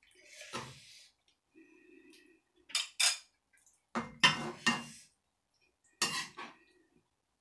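Metal spoon scraping and knocking against a frying pan and a ceramic bowl as curry is ladled out, with a cluster of sharp clinks in the middle and latter part.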